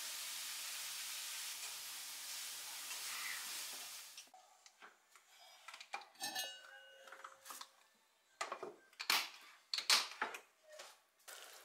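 A steady hiss for about four seconds. Then the lid of a heavy black cooking pot is lifted off and handled, with a ringing metallic clink about six seconds in. Several sharp clanks of pot, lid and utensils follow near the end.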